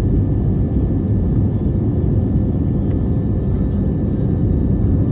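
Steady low roar heard inside the cabin of an Airbus A320neo, its CFM LEAP-1A engines and the rush of air past the fuselage, while the airliner is airborne.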